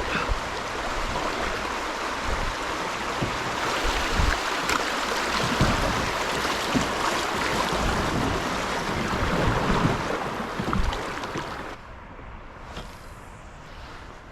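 River water rushing and splashing around a kayak, a steady hiss with low knocks underneath, dropping off abruptly to a much quieter background about twelve seconds in.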